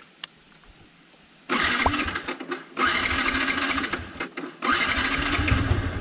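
Yamaha motorcycle's electric starter cranking the engine in three bursts, with short pauses between them, after a couple of clicks. The choke is on because the starter was not working properly.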